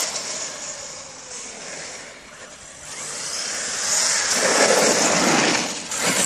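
HPI Savage Flux XL electric RC monster truck running at speed on a wet road: the high whine of its brushless motor and drivetrain with tyre hiss fades as the truck runs away, then swells again as it drives back close, loudest about four to five seconds in.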